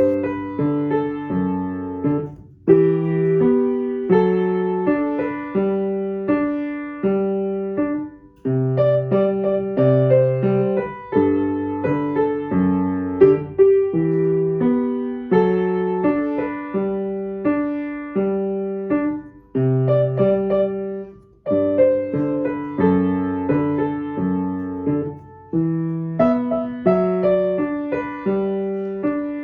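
Background piano music, notes played in a gentle regular rhythm, each note struck and fading.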